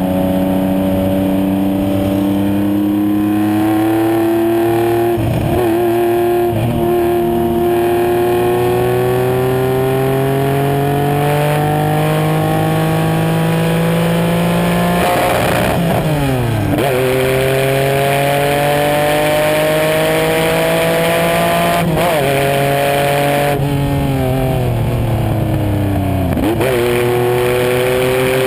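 Race car engine heard on board at racing speed, its pitch climbing steadily through each gear and falling sharply several times at gear changes and lifts off the throttle, over steady wind and road rush.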